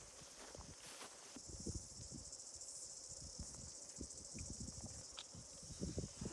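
Insects chirring steadily in the grass, a high, fine, rapidly pulsing buzz, over the soft irregular footfalls of someone walking uphill.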